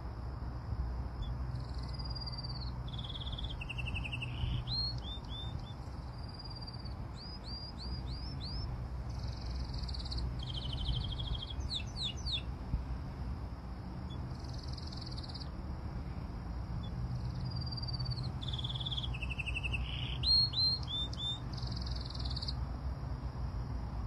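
A songbird singing a long, varied phrase of whistled notes, trills and quick rising notes, then repeating much the same phrase a few seconds later, over a steady low rumble.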